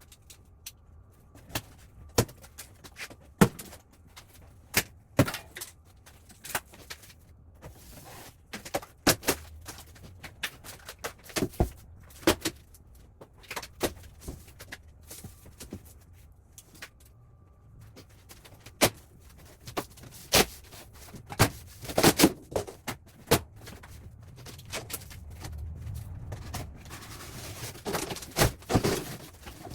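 Unpacking a large boxed rolling tool box: irregular clicks, knocks and handling noises as the cardboard and packaging are worked off, with a cluster of louder knocks and rustling near the end.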